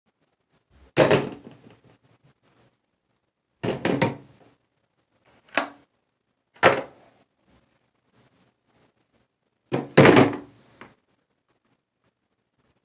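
A series of knocks and thumps: five short bouts a second or more apart, some with two or three quick hits, the loudest about a second in and about ten seconds in.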